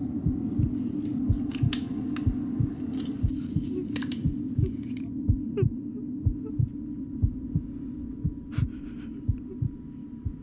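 Film soundtrack of a low, regular heartbeat-like throb, about three beats a second, over a steady hum, with scattered sharp clicks.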